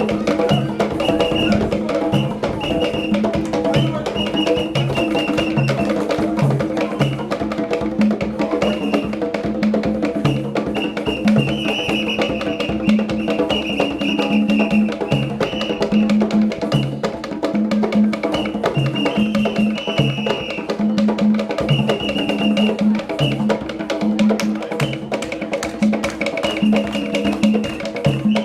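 Loud music with a steady percussion beat and a high melodic line.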